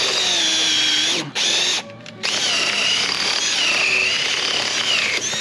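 Cordless drill boring into an old suspension bushing held in a vise, its motor whine sagging in pitch under load. It stops twice in quick succession about a second and two seconds in, then runs on steadily.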